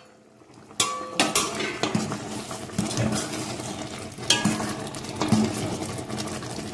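A sharp metal clink about a second in, then a steel ladle stirring and scraping round a stainless steel pot of semiya vermicelli and sago simmering in water, with repeated clinks of ladle on pot. The stirring keeps the vermicelli from sticking to the bottom.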